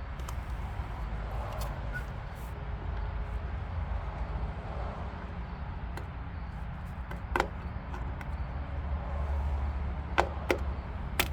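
Plastic taillight lens cover being handled and fitted onto its housing, with a few sharp clicks and knocks: one about seven seconds in and three close together near the end. A steady low rumble runs underneath.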